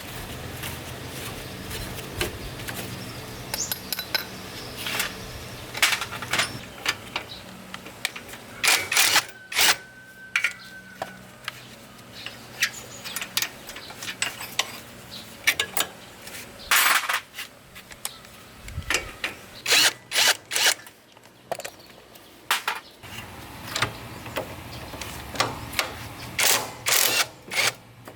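Repair work on motorbike parts: a string of irregular sharp clicks and knocks of tools on parts, over a low steady hum that stops near the end.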